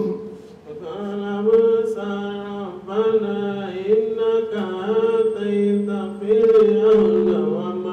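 A man reciting the Quran in Arabic in a slow melodic chant, holding long notes with wavering ornaments and pausing briefly for breath; the recitation begins about a second in.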